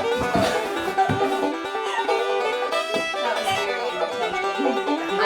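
Upbeat bluegrass-style background music led by a plucked banjo.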